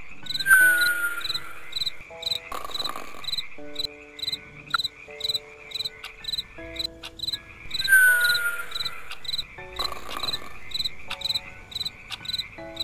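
Night-time jungle ambience: crickets chirping in an even, repeating rhythm over a continuous insect trill. A falling whistle-like call sounds twice, about half a second in and again about eight seconds in.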